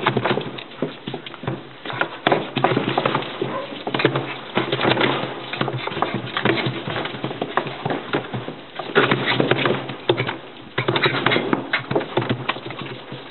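A puppy scrabbling about on newspaper lining its plastic bed: quick, irregular scratching, tapping and rustling from its paws, easing off briefly about ten seconds in.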